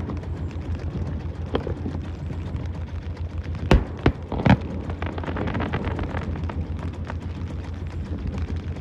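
Fireworks shells bursting: a few sharp booms, the loudest about four seconds in with two more following within a second, over a steady low rumble.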